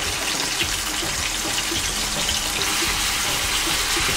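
Chicken kebab skewers frying in oil on a hot grill pan: a steady sizzle full of fine crackles.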